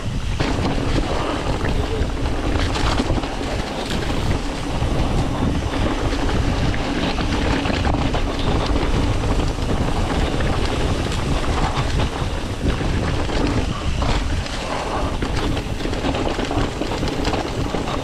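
Mountain bike riding down a leaf-covered dirt singletrack: wind buffeting the camera microphone over the steady noise of the knobby tyres rolling through dry leaves and dirt, with small knocks and rattles from the bike over bumps.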